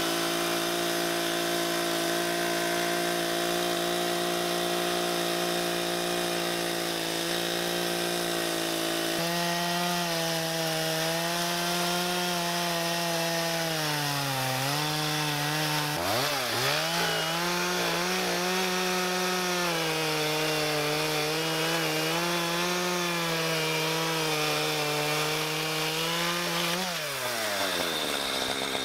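Echo Timber Wolf two-stroke chainsaw running at high revs while cutting through a large maple burl. Its pitch holds steady at first, then sags and wavers under load, dips sharply about halfway through, and winds down near the end.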